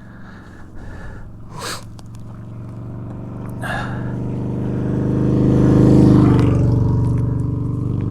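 A motor vehicle's engine running, growing louder to a peak about six seconds in and then easing off, like a vehicle going past. There are two brief rustles earlier on.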